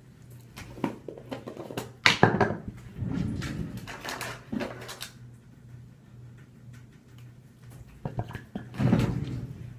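Items being handled and set down on a bathroom counter: scattered knocks and clatter, loudest about two seconds in and again near the end, over a steady low hum.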